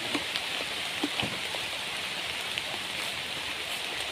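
Steady rain falling on forest foliage, an even hiss dotted with scattered small ticks, with a couple of light knocks about a second in.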